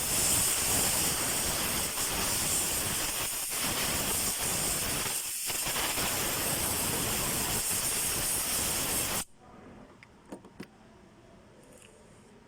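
A loud, steady hiss lasting about nine seconds, dipping briefly twice, then cutting off suddenly.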